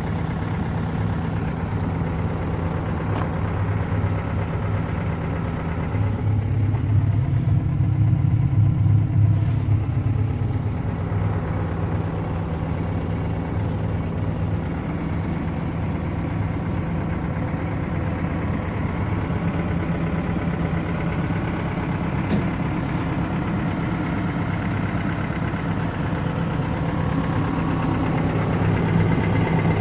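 Diesel engine of a 2005 Cat 430D backhoe loader running at a steady idle. Its low note grows louder for a few seconds from about six seconds in, then settles back.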